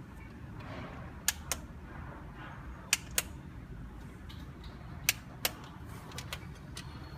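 Plastic push-button switch on a solar LED camping light clicked in quick pairs, three pairs about two seconds apart, as the light is switched through its modes.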